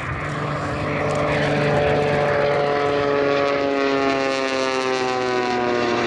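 The Screamin' Sasquatch jet Waco biplane in flight: its radial engine and propeller make a steady drone of several stacked tones that slowly falls in pitch.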